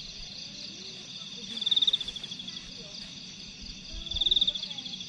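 Insect chorus: a loud, fast-pulsed trill that swells and fades about every two and a half seconds, twice, over a steady high-pitched insect buzz.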